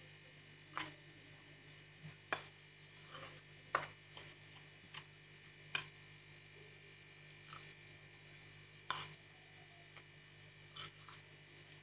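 Steel spoon stirring thick flour batter in a stainless steel bowl, clinking against the bowl about ten times at irregular intervals. A steady low electrical hum runs underneath.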